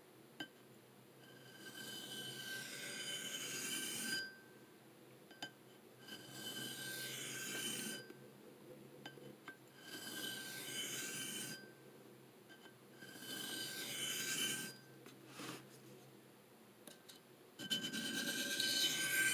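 Knife blade of CPM M4 steel drawn across a wet 600-grit DMT diamond sharpening plate: five long scraping strokes, each about two seconds, with a faint ringing from the blade and short pauses between them. The last stroke has a stuttering sound as the burr is taken off.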